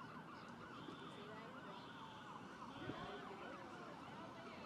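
Faint emergency-vehicle sirens, several at once, wailing in quick overlapping rise-and-fall sweeps, with one slower tone gliding downward.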